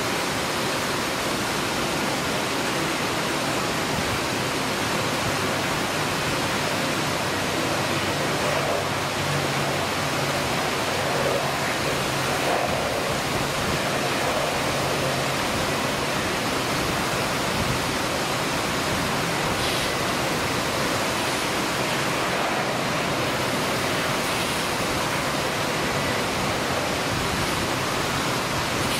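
Steady hiss of heavy rain. A faint low drone of the taxiing ATR 72 turboprop's engines and propellers shows through in the middle.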